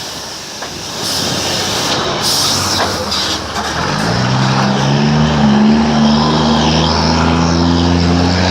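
Truck engine with a straight-through exhaust running over road and wind noise; about four seconds in its low exhaust drone rises in pitch as the engine pulls, then holds steady.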